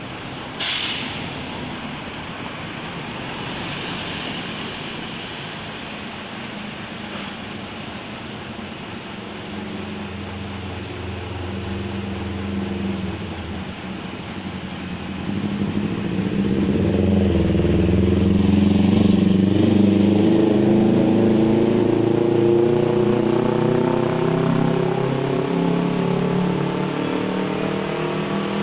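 Heavy diesel engine running, growing louder and slowly rising in pitch from about halfway through as it speeds up. A brief sharp knock comes about a second in.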